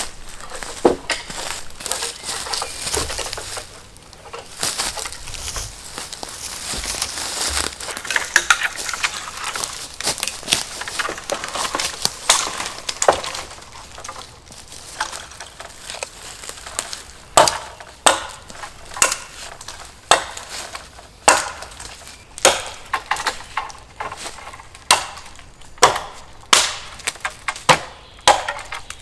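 Dry dead wood and brush crunching and crackling, then a run of sharp wooden knocks about one a second, like dead wood being chopped or broken.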